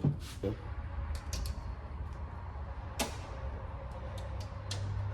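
Scattered light clicks and taps of a tool probing inside a car door shell to retrieve a dropped part, over a steady low hum; the sharpest tap comes about three seconds in.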